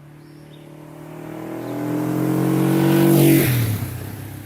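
A motor vehicle driving past: its engine note grows louder, peaks a little over three seconds in, then drops in pitch and fades as it goes by.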